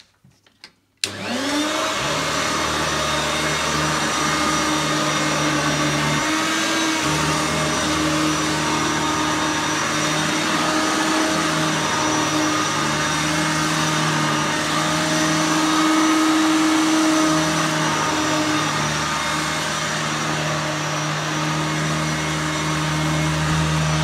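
Hoover Turbomaster upright vacuum cleaner switched on about a second in. Its motor spins up with a rising whine, then runs steadily.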